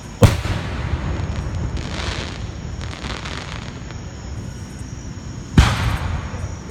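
Aerial firework shells bursting twice, about five seconds apart, each a sharp loud bang followed by a rolling rumble and crackle, with fainter crackling between.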